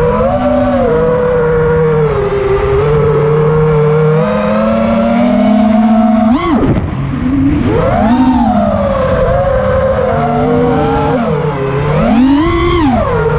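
Raptor210 FPV racing quadcopter's four Lumenier 2206 2350kV brushless motors and DALPROPS three-blade props whining, heard from the onboard camera, the pitch rising and falling with throttle. About six seconds in the throttle chops briefly and punches back up, with further surges about eight and twelve seconds in.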